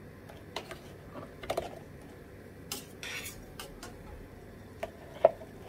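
Kitchenware clinking and knocking as a block of blanched tofu is scooped out of a steel pot and set into a plastic colander: a few scattered clinks, a short swish about three seconds in, and the sharpest knock near the end.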